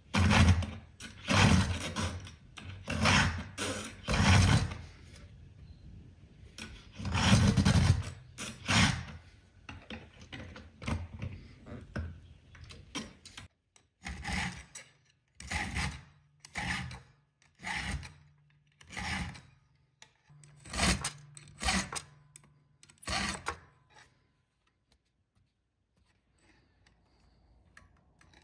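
Chainsaw file rasping across the cutters of a chain mortiser's chain in repeated strokes, about one a second, sharpening the blunt chain tooth by tooth. The filing stops a few seconds before the end.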